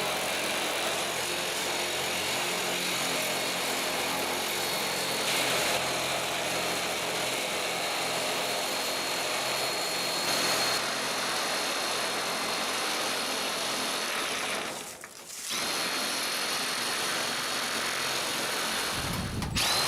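Electric power tool running steadily with a constant high motor whine. It stops briefly about fifteen seconds in, then starts again.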